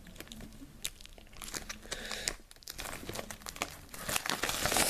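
Plastic wrapping on a DVD box set being torn and crumpled, crinkling in irregular crackly bursts that grow louder and denser near the end.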